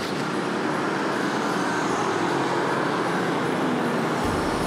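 Steady city street traffic noise, a continuous wash of engines and tyres, with a low rumble coming in near the end.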